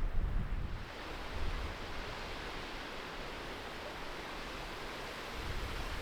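Strong gusty wind: a steady rushing hiss that comes in just under a second in, with low rumbling buffets of wind on the microphone at the start and again near the end.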